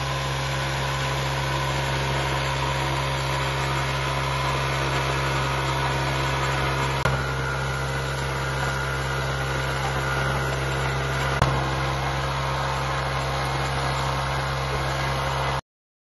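An engine running steadily, a constant hum with an even hiss over it. There are two faint clicks partway through, and the sound cuts off suddenly near the end.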